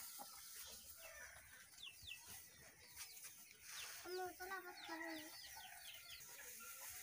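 Faint chickens clucking, with a few drawn-out pitched notes about four seconds in, amid a run of quick, high, falling chirps from small birds.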